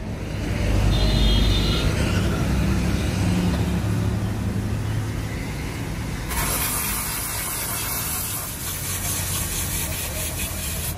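Handheld grinder buffing tire rubber with an abrasive disc: a harsh, hissing grind that starts suddenly about six seconds in and runs steadily, over a low rumble heard throughout.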